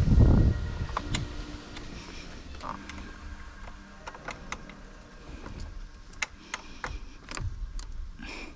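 A loud low thump at the start, then scattered sharp clicks and light knocks of hand tools being worked at the steering wheel, undoing the Torx screws that hold the airbag.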